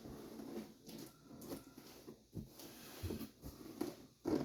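Faint rustling and handling noises of a shipping package being handled at close range, with a short louder sound near the end.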